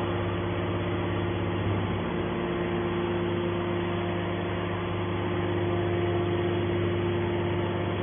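Hydraulic power unit of a scrap metal baler running with a steady hum and an even tone while a hydraulic cylinder swings the baler's lid over to close the press box.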